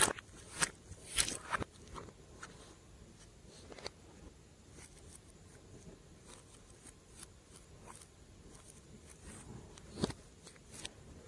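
Glossy slime being squeezed and stretched by hand, giving sharp sticky clicks and pops. A quick run of them in the first two seconds, then only faint scattered crackles, then a few louder clicks again near the end.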